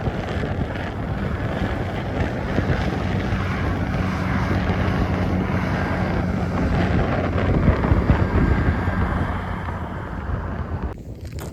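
Strong wind blowing across the microphone in a dense, gusting rush, with a steady low hum underneath through the middle and the loudest gust about eight seconds in.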